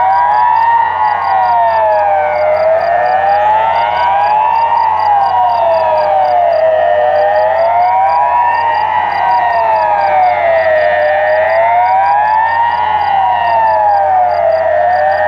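Swiss civil-defence siren sounding the General Alarm, a tone that rises and falls smoothly about every four seconds without a break.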